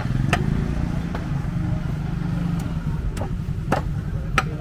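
A motor vehicle engine running steadily, with a few sharp clicks over it.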